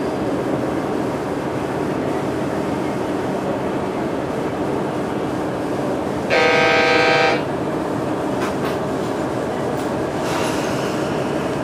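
Running noise of a KiHa 110 series diesel railcar heard from inside the cabin: steady wheel-on-rail rumble and engine drone. A little past halfway a horn sounds once for about a second.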